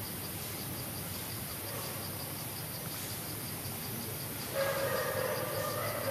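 Steady high-pitched chorus of insects with a fast, even pulsing trill. A louder drawn-out call with several pitches joins about four and a half seconds in and lasts to the end.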